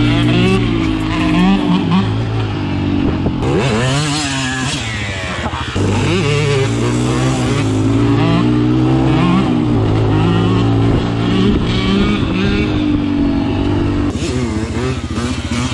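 Dirt bike engine running hard on a dirt trail, its revs stepping up and down over and over, with a quick rising rev about four seconds in.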